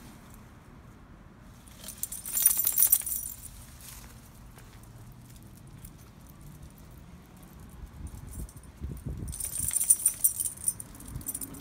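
Small metal pieces jingling in two short bursts, about two seconds in and again near the end, with faint low handling thumps just before the second burst.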